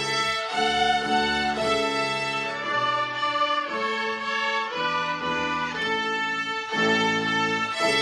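A children's violin ensemble playing a melody together, bowed notes held for about half a second to a second each as the tune moves from note to note.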